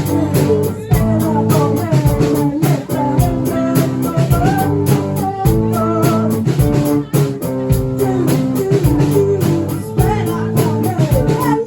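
A band playing live: guitar and drum kit with a steady beat under a melody line that slides up and down in pitch.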